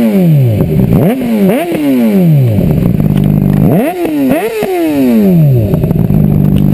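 2008 Honda CBR600RR inline-four with a Hindle aftermarket exhaust revved in quick throttle blips, twice in the first couple of seconds and twice more about four seconds in. After each pair the revs sink back to a steady idle.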